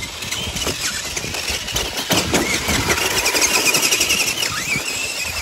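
Remote-control Grave Digger monster truck's electric motor whining, rising and falling with the throttle, over a dense crackle of tyres and clatter on snow as it drives and crashes into the toy trucks.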